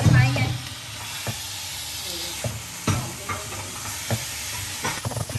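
Food sizzling in a hot pan while it is stirred, with a utensil knocking against the pan about half a dozen times.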